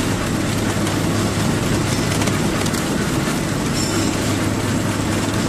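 Flexible drinking-straw making machine running at production speed: a steady mechanical clatter over a constant low hum.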